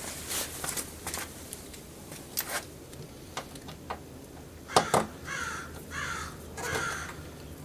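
Small clicks and taps of a Phillips screwdriver working a bracket screw inside a car door panel, with a louder pair of knocks about five seconds in. Near the end, three short harsh squawks follow one another.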